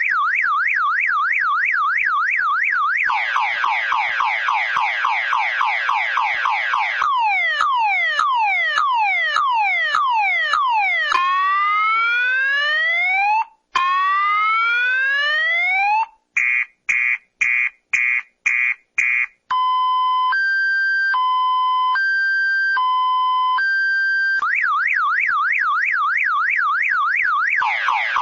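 Multi-tone car alarm siren cycling through its patterns: a fast up-and-down warble, rapid falling chirps, slower falling sweeps, two long rising whoops, a run of short beeps, and a two-tone high-low alternation. The warble then returns and cuts off at the end.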